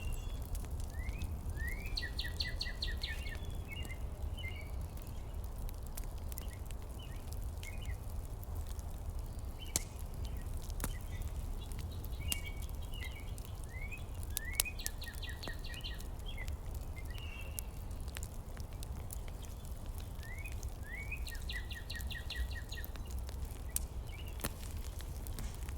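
Steady low rumble of a heater running, with a songbird's short phrase of chirps and a trill repeating three times about ten seconds apart, and scattered sharp clicks.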